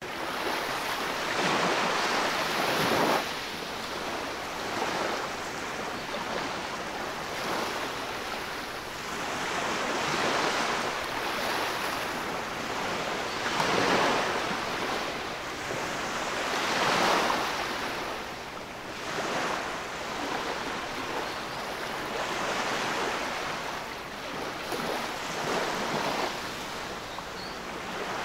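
Surf washing up a sandy beach: foaming waves rushing in over the sand and draining back, the hiss swelling and fading every few seconds.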